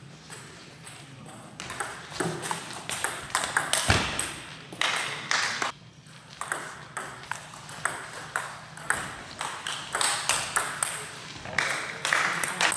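Table tennis ball clicking off the bats and the table in a rally. The clicks come quickly from about two seconds in and stop near the end.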